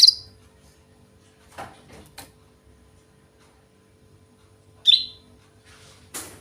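Sooty-headed bulbul (kutilang) giving two short, sharp, high calls, one at the start and one about five seconds in. Faint knocks come between them and a brief rustle near the end.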